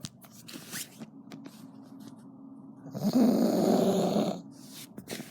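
Snoring: quieter breathing, then one loud, rasping snore about three seconds in that lasts about a second and a half, followed by a couple of faint clicks near the end.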